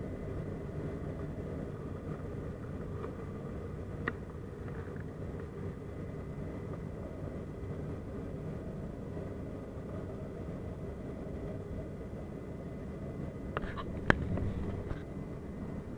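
Steady low drone of a turboprop airliner's engines and propellers heard from inside the passenger cabin, with a faint steady whine above it. A single sharp click comes about four seconds in, and a short cluster of clicks and knocks comes near the end, the sharpest of them the loudest sound.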